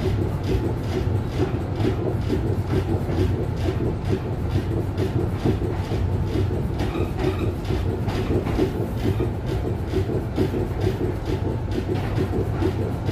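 Duewag GT8 articulated tram heard from inside the passenger car while running along the line: a steady low rumble from the running gear, with a quick, uneven rattle and clatter over it throughout.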